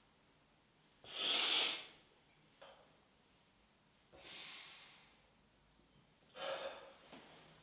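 A man breathing heavily in separate loud breaths, the first about a second in and the loudest, then further breaths around four seconds and six and a half seconds, with quiet between.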